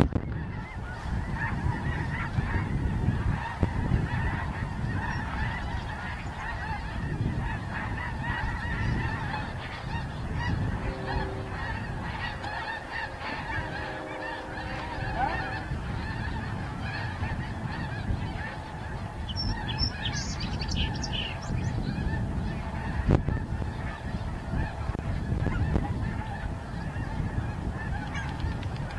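A large flock of geese honking continuously, a dense chorus of many overlapping calls, over a low rumble. A single brief knock about three-quarters of the way through.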